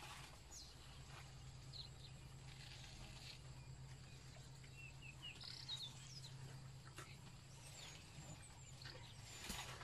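Quiet bush ambience: faint, scattered chirping bird calls over a low steady hum, with a few soft clicks.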